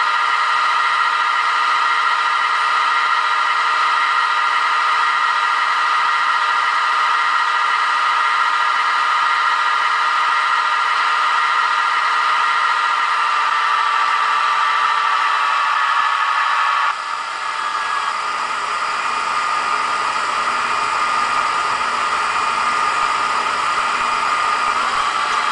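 Digital sound decoder of a Fleischmann model DB class 218 locomotive playing its diesel engine sound through the model's small loudspeaker: a steady engine drone with little bass. About 17 s in the sound drops suddenly and turns rougher, then slowly builds again.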